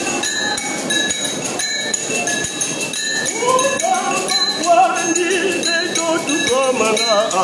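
Church music: a steady rhythm of jingling, tambourine-like percussion, joined about halfway through by singing voices that rise and waver in pitch.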